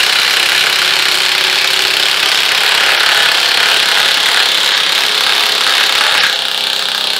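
Two cordless high-torque impact wrenches on speed 3 hammering 7-inch lag bolts into a pressure-treated wooden post at the same time, giving a loud, dense, continuous rattle of impacts. About six seconds in the sound drops slightly and changes.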